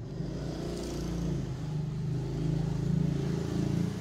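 An engine running steadily, with a low hum that grows louder over the first three seconds.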